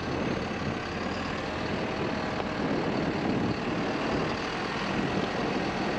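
Mercedes-Benz Vario 4x4 expedition truck driving, its diesel engine running steadily under an even rush of road and wind noise.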